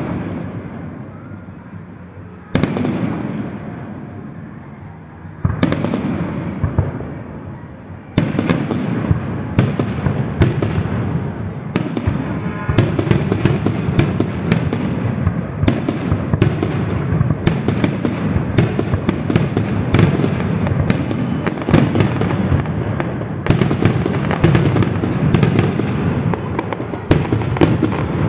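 Fireworks display: single aerial shells bursting about every three seconds, each bang followed by a long fading rumble, then from about eight seconds in a rapid, continuous barrage of bangs and crackles.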